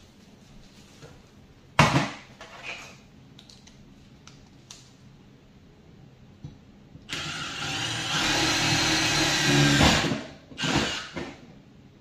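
Cordless drill running for about three seconds as a hole is drilled through the bottom of a metal wire lamp cage, followed by a short second burst. A sharp knock comes about two seconds in.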